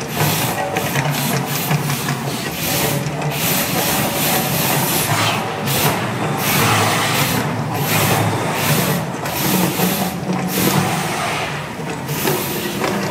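Gas-fired flame effects of the Mirage's artificial volcano erupting: a loud, continuous rushing noise with crackles running through it, as the flames burst up again and again.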